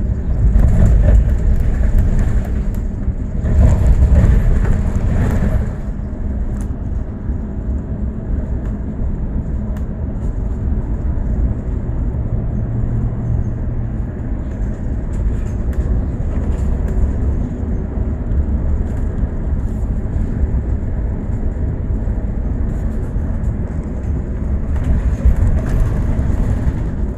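Bus in motion heard from inside the cabin: a steady rumble of engine and road noise, louder twice within the first six seconds.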